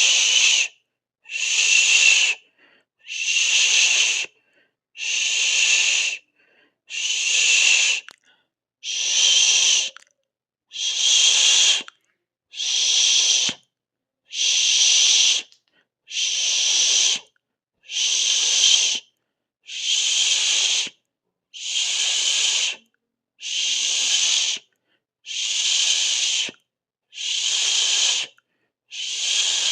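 A shushing 'shh' hiss, repeated in an even rhythm of about one every two seconds, each about a second long with a short silence between.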